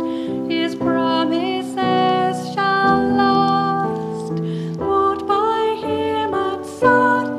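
A woman singing a worship song with keyboard accompaniment, in held, slow-moving notes.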